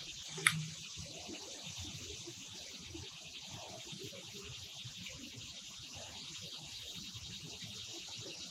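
Quiet open-air ambience on the water: a faint, steady high hiss, with one sharp click about half a second in.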